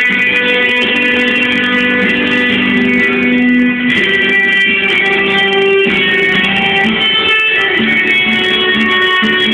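Guitar solo: held, ringing notes that change every second or two over a sustained lower note.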